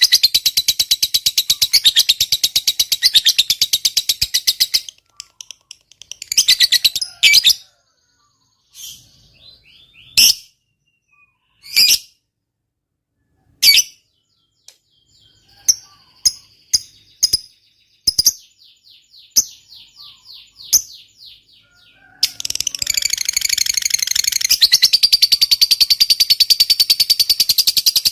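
Lovebird singing its long 'ngekek' chatter, a very fast run of repeated high notes lasting about five seconds. It breaks off into scattered short chirps and squeaks, then starts another long rapid chatter near the end.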